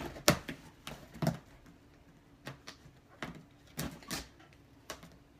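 Knife slicing through packing tape along the seams of a cardboard box: about ten short, irregular cuts and scrapes, the loudest in the first second or so.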